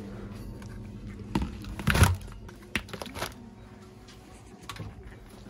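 Plastic spray bottles of cleaner handled on a shelf and dropped into a plastic shopping basket: a few knocks and clatters, the loudest about two seconds in, over a steady low hum.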